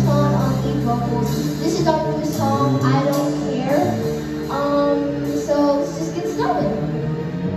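A child singing lead into a microphone over a small live band of electronic keyboards and electric guitar, the sung melody moving in short phrases over sustained low notes.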